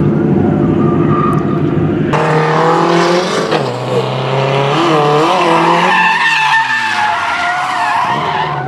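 Two drift cars sliding in tandem, engines revving up and down through the drift over screeching tyres, from about two seconds in. Before that, engines idle low and steady. Near the end one engine's pitch falls away.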